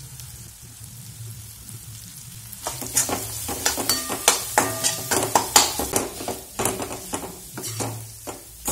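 A perforated steel spatula scraping and knocking against a kadhai while boiled potatoes are mashed and stirred with spices, in quick, irregular strokes that start about three seconds in, some with a brief metallic ring. A low steady hum lies under it.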